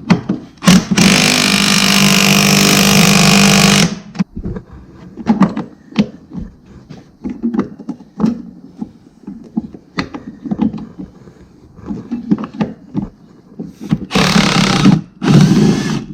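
A handheld power tool runs steadily for about three seconds, then comes a scatter of metal knocks and clinks, and near the end the tool runs again, more briefly.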